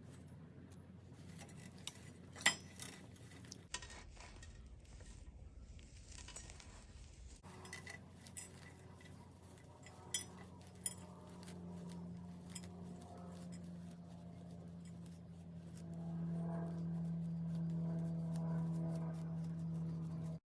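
Scattered light clinks and scrapes of a hand tool against a flower pot as potting soil is dug out. A steady low hum joins about halfway and grows a little louder toward the end.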